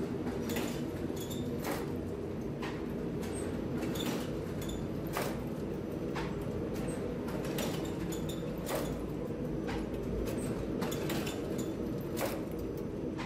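Lavash dough-sheeting machine running: a steady motor hum with irregular clicks and rattles from its roller-chain drive, about one or two a second, and faint high squeaks.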